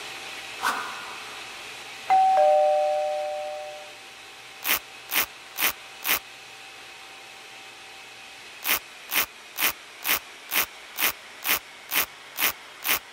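A click, then a two-note falling ding-dong chime that fades out. A paintbrush then sweeps milling dust from a dental milling machine's clamp and tool magazine in quick swishing strokes, about two a second: four strokes, a short pause, then a longer run.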